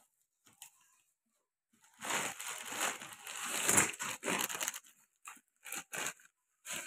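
Clear plastic wrapping crinkling and a cardboard box rustling as a clutch pressure plate is pulled out of its packaging. After about two seconds of near quiet with a couple of faint clicks, the crinkling runs steadily for roughly three seconds, then breaks into short rustles.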